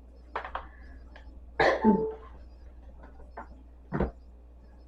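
A person coughing: one loud cough about a second and a half in and a shorter one near the end, with a few light clicks before the first.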